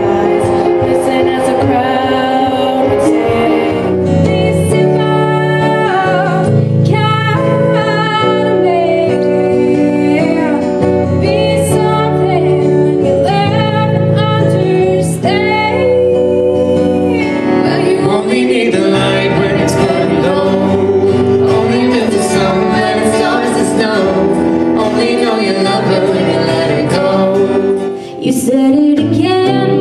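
Live music with a young woman singing lead over instrumental accompaniment, cutting from one song to another. A short drop in level near the end marks the change to the next song.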